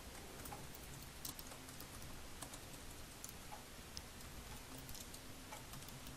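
Faint computer keyboard keystrokes: scattered, irregular typing clicks as a short phrase is typed.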